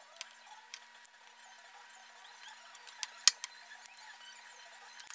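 Scattered light clicks and clinks of metal tools and parts being picked up and set down on a workbench, with a few sharper knocks about three seconds in.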